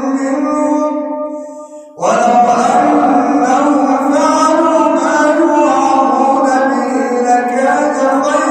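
A man chanting the Quran in the melodic tajweed style. He holds one long note that fades away, then begins a new phrase about two seconds in.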